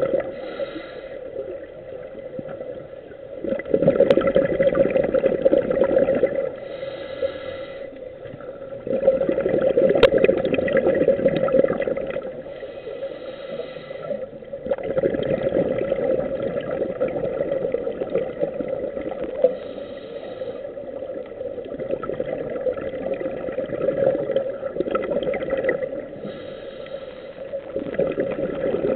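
Scuba diver breathing through a regulator underwater: a short hiss of inhaled air, then a longer gurgling rush of exhaled bubbles, repeating about every six seconds for some five breaths. A steady hum runs underneath.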